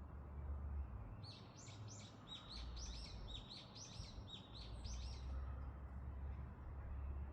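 A songbird singing a rapid series of repeated, down-slurred high notes for about four seconds, starting about a second in, over a steady low wash of running-water noise.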